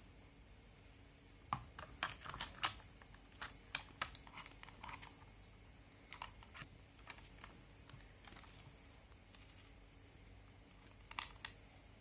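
Scattered light clicks and taps, a quick cluster of them in the first few seconds, a few more spread through the middle and a quick pair near the end.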